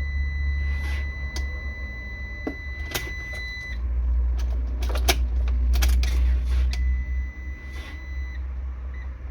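The van's dashboard warning chime: a steady high electronic beep held for about three and a half seconds, then sounding again for about two seconds near the end. Several sharp clicks fall between, over a low rumble that swells in the middle.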